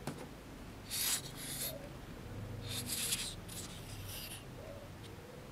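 Paper rustling and rubbing against paper in several short scrapes as a paper strip is handled and pressed onto a card.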